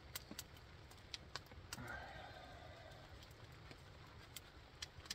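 Small open wood fire crackling, with scattered sharp pops at irregular spacing, and a brief soft rustle about two seconds in.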